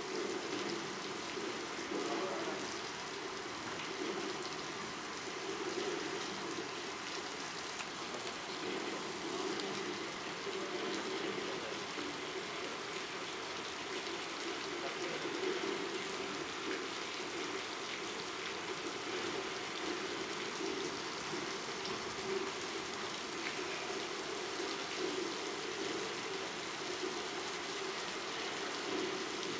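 Steady rushing hiss of water spraying from a fire hose, like heavy rain.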